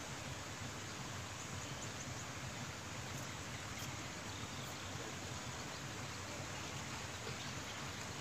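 Steady outdoor ambient noise, an even hiss with no distinct event, with a few faint high chirps.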